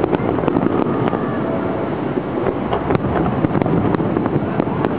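Fireworks display heard from a distance: a continuous rumbling din of shell bursts, peppered with many short sharp cracks and pops.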